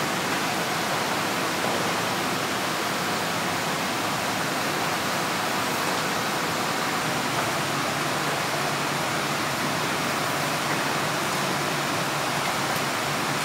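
Steady rushing hiss of factory machinery in a sweets-cooking room, even and unbroken, with no distinct knocks or clatter.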